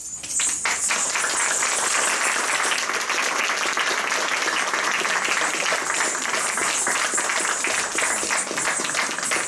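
Audience applauding, breaking out suddenly and holding steady as a dense crackle of many hands clapping.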